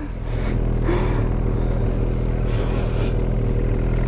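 Ski-Doo 850 two-stroke snowmobile engine running steadily at a low, even speed.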